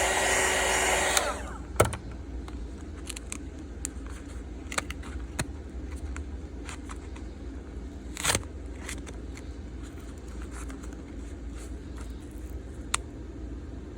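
A hot-air blower heating the phone's back runs for about a second, then switches off and winds down. After that come light clicks and scrapes as the Samsung Galaxy A31's plastic back cover is worked loose, with sharper knocks about two seconds in and again about eight seconds in.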